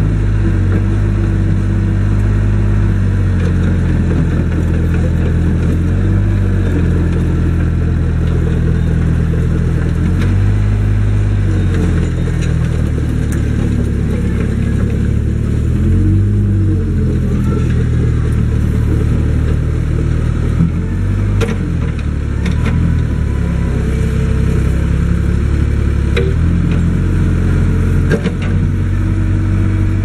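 Kobelco SK042 mini excavator's diesel engine running under work, its pitch shifting up and down every few seconds as the boom, arm and bucket are worked and the upper body swings. A few sharp knocks come in the second half.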